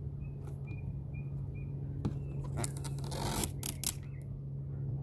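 Adhesive rubber rear-window spoiler strip being pressed onto the glass while its red backing tape is peeled away: light scraping and tearing, with a quick cluster of sharp clicks and a short rustle about three seconds in.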